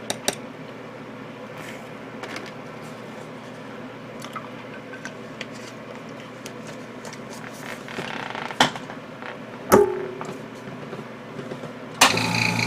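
Quiet handling with small clicks and two sharper knocks, then near the end a small airbrush compressor switches on suddenly and runs steadily.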